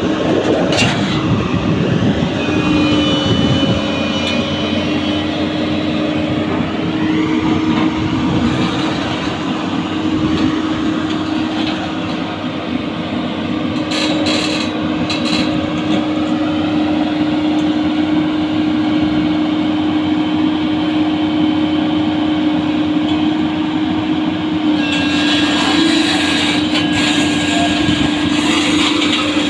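JCB crawler excavator running under load, its engine and hydraulics giving a steady hum under a heavy rumble and rattle of steel tracks as it climbs onto a lowbed trailer. The noise grows brighter and harsher about 25 seconds in.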